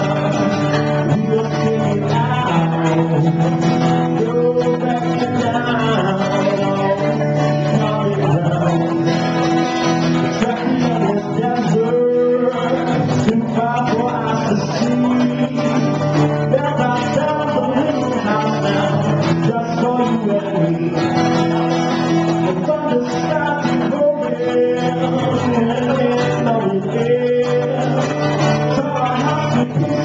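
A man singing while strumming an acoustic guitar.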